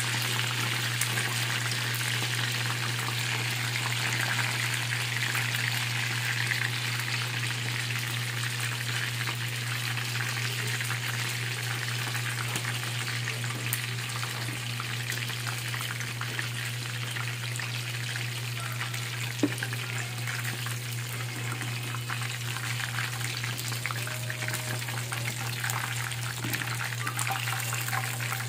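Chicken pieces deep-frying in hot oil in a wok, a steady sizzle with fine crackling, a little louder in the first few seconds. One sharp click about two-thirds of the way through.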